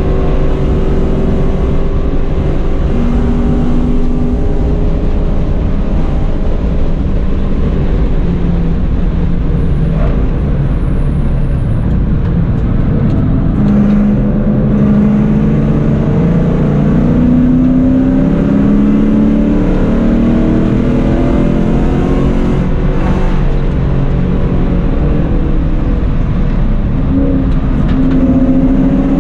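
Car engine heard from inside the cabin under hard track driving, its revs climbing and dropping back several times as it runs through the gears, over steady road and wind noise.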